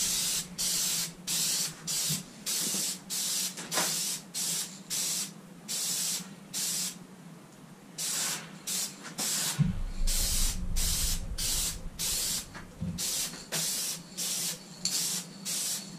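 Aerosol can of Plasti Dip liquid rubber hissing in short repeated spray bursts, about two or three a second, with a pause of about a second midway.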